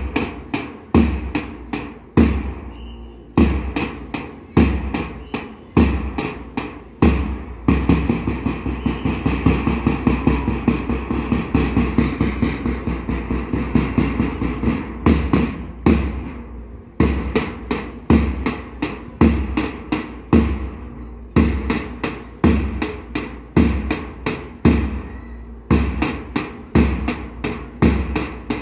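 A drum beaten in a steady repeating pattern to keep time for a drill: a heavy deep beat about once a second, each followed by lighter strokes. From about 8 to 15 seconds in it turns into a fast continuous roll, then the beat pattern resumes.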